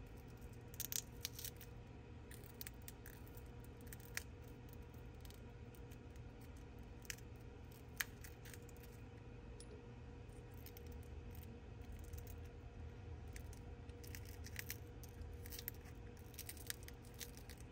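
A thin pick scraping and prying at broken back glass on a phone, making scattered light clicks and scratches as glass fragments come away, with the sharpest click about eight seconds in and a busier run of clicks near the end.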